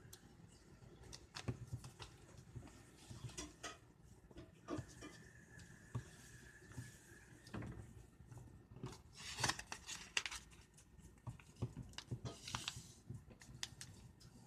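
Sheet of paper being handled, folded and creased by hand: faint rustling and crinkling with light taps and clicks on a table, the loudest rustles a little past halfway and near the end.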